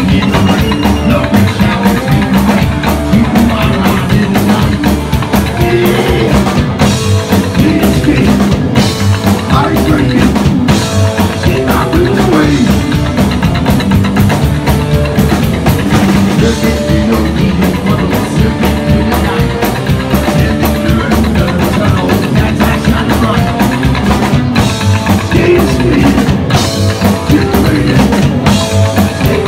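A psychobilly band playing live and loud: upright double bass, electric guitar and drum kit driving a fast beat, with a singer's vocals over them.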